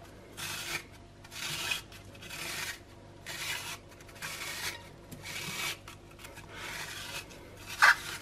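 Handheld cone spiralizer's blade shaving a whole zucchini into noodles as it is twisted, giving a rasping scrape about once a second, with one sharper, louder scrape near the end.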